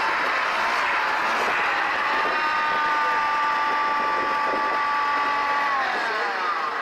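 1977 Kawasaki Sno-Jet snowmobile's two-stroke engine running steadily as the sled pulls up. Near the end the engine note drops as the throttle is let off.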